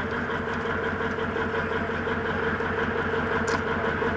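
A fishing boat's inboard engine running steadily at a constant pitch, with a fast, even pulsing.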